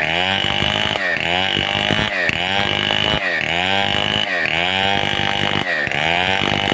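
Stihl 070 two-stroke chainsaw running hard while cutting timber. Its engine pitch swings up and down about once a second as the bar loads and frees in the cut.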